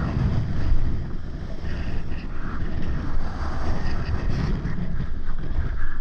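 Strong gusty wind, about 30 to 40 knots, buffeting the microphone in an uneven rumble, with surf washing around in the shallows.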